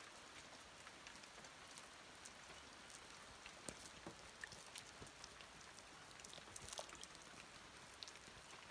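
Near silence: a faint hiss with scattered small ticks and drips.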